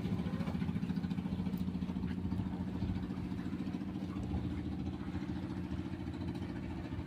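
Motorboat engine running steadily at an even pitch, gradually getting quieter.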